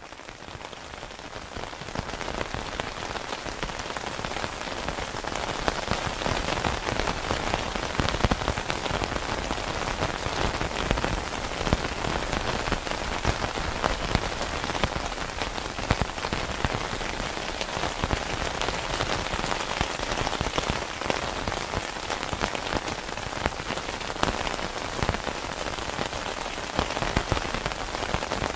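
Steady rain falling, with the taps of single drops heard through it. It fades in over the first few seconds, then holds even.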